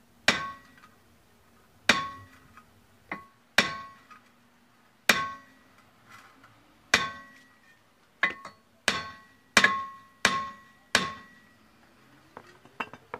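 Hammer blows on a Kia Sorento rear brake disc that is rusted onto the hub, struck between the wheel studs to break the rust seal. There are about ten sharp metallic strikes, each ringing briefly, spaced a second or more apart at first and coming quicker near the end.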